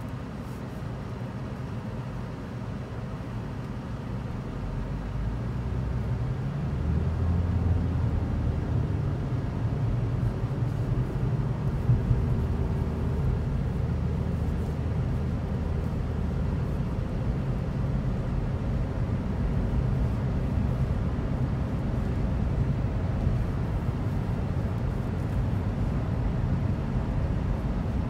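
Car cabin noise: engine and road rumble build over the first several seconds as the car pulls away from a stop, then hold steady while it cruises. There is one brief knock near the middle.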